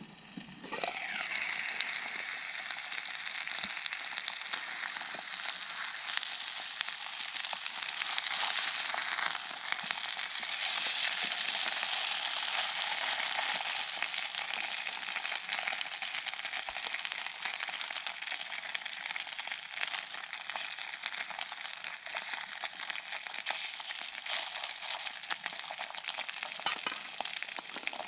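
Seasoned chicken pieces sizzling and crackling in hot oil in a Tierra Multi Flypan frying pan on a Trangia stove. The sizzle sets in about a second in and is loudest in the first half.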